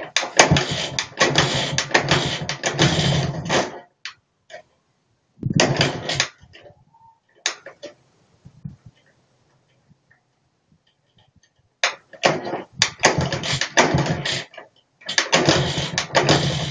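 IZh Planeta 2's single-cylinder two-stroke engine firing in four short bursts and dying out between them, a rough first start after a new piston and rings went into an engine that had sat seized for 25 years.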